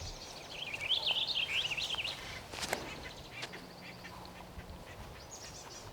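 Birds chirping: a quick run of high, wavering calls in the first couple of seconds, then a single sharp click a little after halfway.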